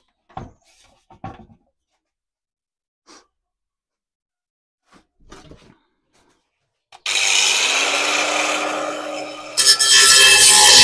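A few faint handling clicks, then about seven seconds in an angle grinder starts, its whine rising as the motor spins up. Its cutting disc then bites into a steel exhaust pipe and grows louder near the end as it cuts through the bend.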